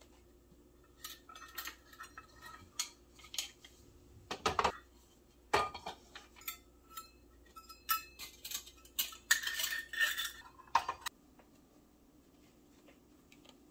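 Metal measuring cups and spoons clinking and clattering against each other and a metal hanging stand as they are hung up: a run of light clinks and knocks, several quick ones close together, which stops a few seconds before the end.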